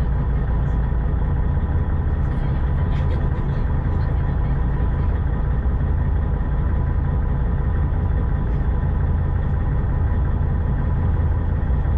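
Passenger ferry's engine running steadily while under way: a loud, even low drone with a constant hum over it.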